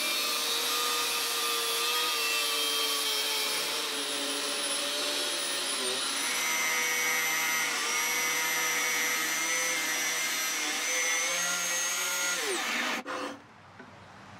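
Angle grinder with an abrasive cutoff wheel cutting through a thick steel bar, running steadily under load. Near the end it is switched off and its pitch falls as it spins down.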